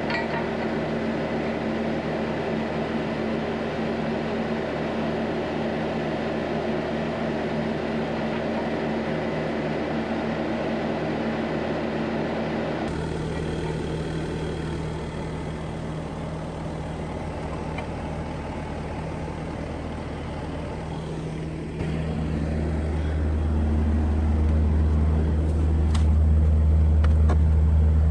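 Bobcat S250 skid steer's diesel engine idling steadily. About two-thirds of the way through, a deeper, louder rumble comes in and holds.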